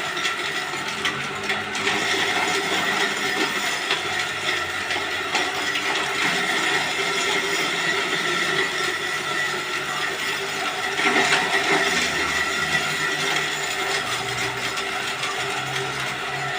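Electric forage chopper for livestock feed running steadily with a constant motor whine and a mechanical rattle, briefly louder about eleven seconds in.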